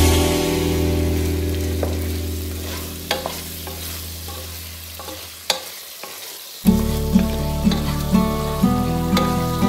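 Chicken frying in a pot and being stirred with a spatula: a steady sizzle with a few sharp scraping clicks. Background music plays over it, fading out a little past halfway and starting again with a rhythmic passage near the end.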